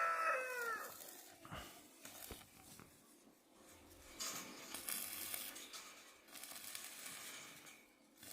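Faint rustling or crinkling noise in two stretches, with a couple of light clicks before them.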